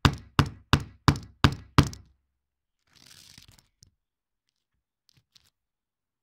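Hammer driving a flat-headed roofing nail through mineral felt on a shed roof: six quick, even blows about three a second that stop about two seconds in. A faint rustle follows about a second later.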